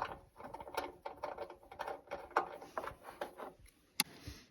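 Hand tools at work on small fasteners: a socket ratchet clicking in quick irregular runs with light metallic rattles as hex nuts are undone, and one sharp click about four seconds in.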